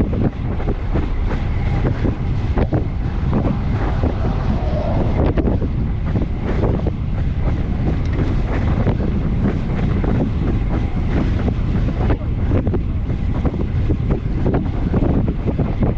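Wind buffeting the microphone of a bike-mounted camera while cycling at full effort: a steady, loud, low rumble with constant flutter.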